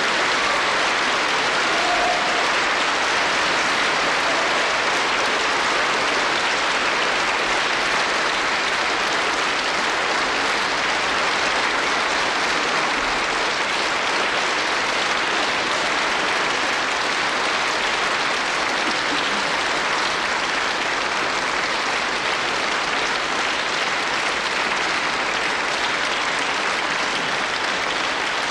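Concert audience applauding steadily after a sung performance.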